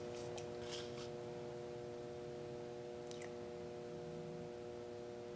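Quiet room tone: a steady machine hum made of several fixed tones, with a few faint small clicks.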